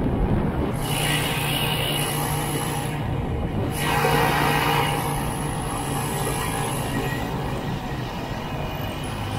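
1967 Ski-Doo Olympique's single-cylinder two-stroke engine running steadily while the sled travels.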